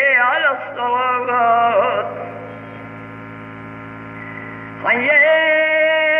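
Elderly man's unaccompanied Islamic chant in the ornamented style of the call to prayer. An ornamented phrase ends about two seconds in, leaving only a steady mains hum for about three seconds, and then a long held note begins near the five-second mark.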